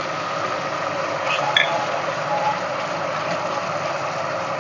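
Chopped onion and tomato frying in hot oil in a steel pot: a steady sizzle, with a brief clink about a second and a half in as a spoon stirs.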